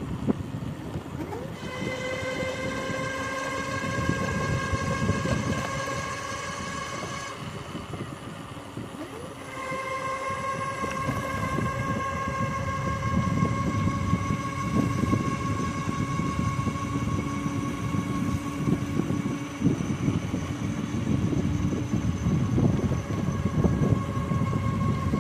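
Electric bike's 250-watt 36-volt hub motor whining steadily under power, its pitch edging up slightly. The whine drops out for about two seconds partway through, then comes back, over a low rushing wind noise.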